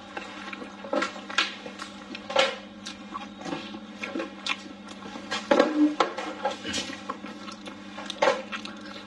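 Close-up eating sounds: mouth smacks and chewing on braised chicken wings and blistered tiger-skin peppers, in irregular wet clicks with a louder cluster a little past halfway. A faint steady hum runs underneath.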